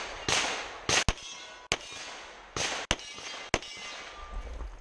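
A rapid string of about seven pistol shots from a CZ .40-caliber pistol, fired at steel targets, some followed by the ring of the steel being hit.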